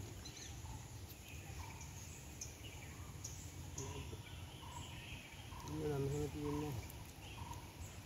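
Faint outdoor ambience: a steady low rumble, a string of short high bird calls, and a brief two-part low call about six seconds in.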